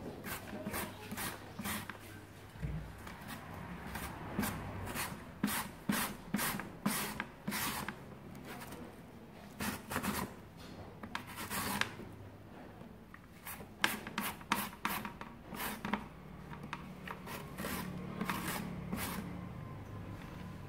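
A carrot being julienned on a handheld plastic julienne slicer with steel teeth: each push across the blades is a short rasping scrape, coming about one to two a second in runs with short pauses between.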